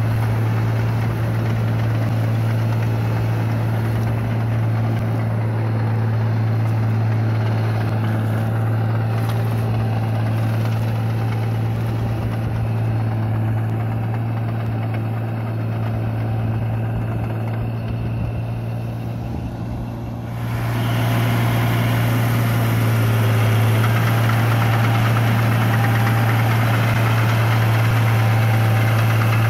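Ford tractor engine running steadily under load while the tracked machine pulls a rotovator through a flooded rice paddy. About twenty seconds in, the sound turns louder and fuller, heard from close by.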